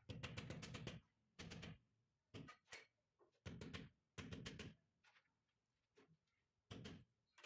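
Mallet tapping a white marble stair tread in several short bursts of quick knocks, bedding the slab into its mortar and bringing it level.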